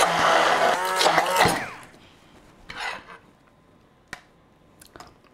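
Handheld stick blender's motor running in a tall glass of mayonnaise as it whips oil into the emulsion, its hum wavering slightly with the load. It switches off about one and a half seconds in and winds down with a falling whine, followed by a few light knocks of the blender against the glass.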